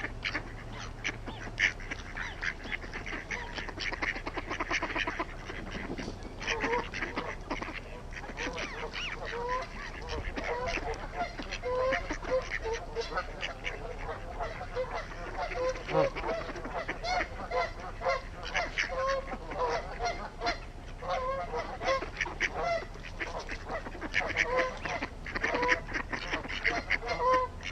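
A flock of geese honking, with many short calls overlapping throughout.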